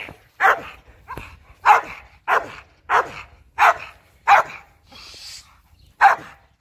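A dog barking over and over, one bark about every half-second, pausing briefly about four and a half seconds in and barking once more near the end; the owner puts this barking down to jealousy.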